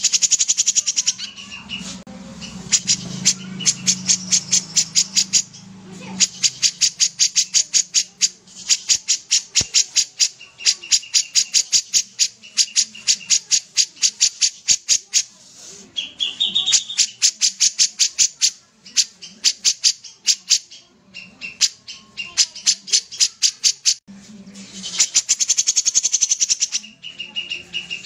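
Caged kapas tembak bulbul singing hard. It gives bursts of sharp notes fired off in fast runs of several a second, the rapid-fire 'tembakan' of a bird in full song, mixed with a few short held whistles and broken by brief pauses.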